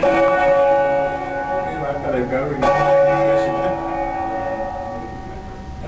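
Church tower bell struck twice, about two and a half seconds apart, each stroke ringing on with several steady tones and slowly dying away.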